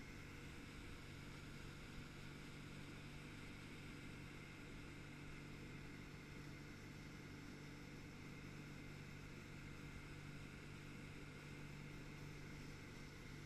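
Faint, steady drone of a ski boat's engine running at towing speed under an even hiss, unchanging throughout.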